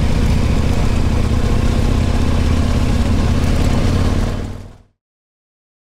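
Adventure motorcycle engine running at a steady cruise under the rush of wind and road noise, fading out about four seconds in.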